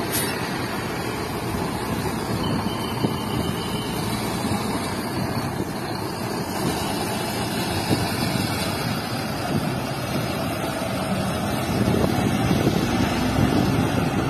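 Mercedes-Benz coach bus pulling out onto the road and driving away, its engine mixed with steady road-traffic noise. The traffic gets a little louder near the end as motorcycles come up.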